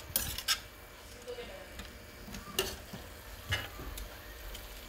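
Metal slotted spoon knocking against a stainless steel frying pan a few times while stir-frying greens, over a faint sizzle.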